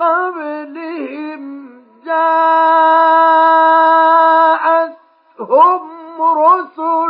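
A male Quran reciter's voice chanting in the melodic mujawwad style, dry with no added echo. He sings a word with gliding ornaments, holds one long steady note from about two seconds in, then breaks into short rising and falling melismatic phrases near the end.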